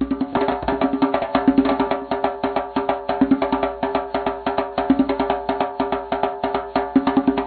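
Rope-tuned djembe hand drum played in a fast, steady rhythm, several strokes a second.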